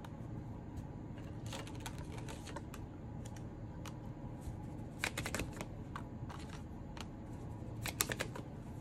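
Tarot cards being handled and laid out: scattered light clicks and taps, bunched into quick clusters about five seconds in and near the end, over a faint steady hum.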